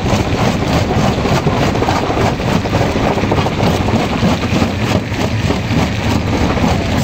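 Stone jaw crusher running, its jaws breaking rock: a loud, steady rumble with dense rapid crunching.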